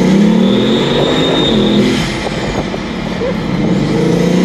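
Bugatti Veyron's quad-turbo W16 engine under hard acceleration, right behind the seats. Its pitch climbs for about two seconds with a thin high whine alongside. It then dips briefly and climbs again near the end.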